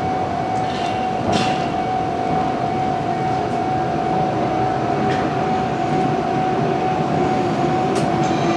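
Hanshin Railway local train running into the station: steady rumble of wheels on rail with a few sharp clacks, over a steady high-pitched tone.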